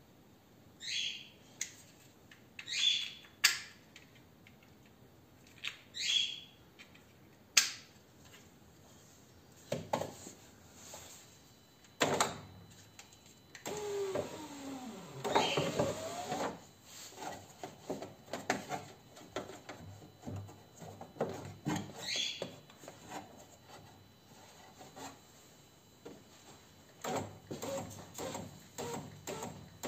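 Plastic wiring connectors and loose door wiring being handled and plugged in, with sharp clicks and a louder stretch of rustling and scraping about halfway through. A few short, high, descending chirps come in the first few seconds and once more later.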